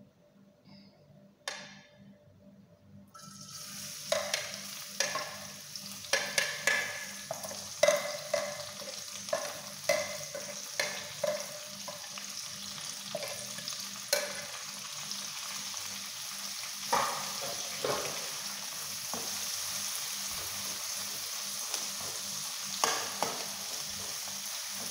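Onions, garlic, curry leaves and spices go into hot oil in a wok and start sizzling about three seconds in. This is the tempering being fried. A metal spoon clicks and scrapes against the pan as they are stirred, often at first, then the sizzle runs on steadily.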